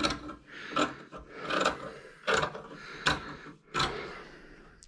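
Scissors snipping through woven fiberglass cloth, six cuts at an even pace of about one every three-quarters of a second.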